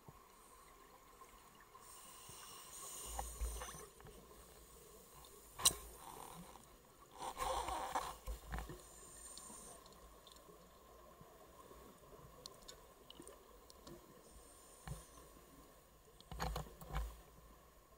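Scuba diver breathing through a regulator underwater: a hissing inhale followed a few seconds later by a burst of bubbling exhaust, twice over. A single sharp click comes about six seconds in.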